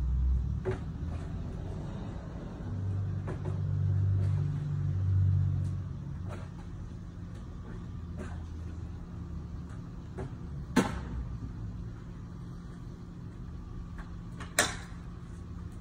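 A low rumble swells and fades over the first several seconds, then two sharp knocks about four seconds apart on a wooden fence gate.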